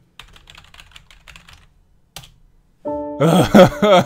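Quick typing on a computer keyboard for about a second and a half, then a single key click. Loud music starts suddenly about three seconds in.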